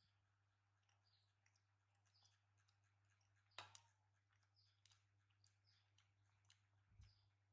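Near silence with faint scattered clicks and one sharper tap about three and a half seconds in, over a low steady hum.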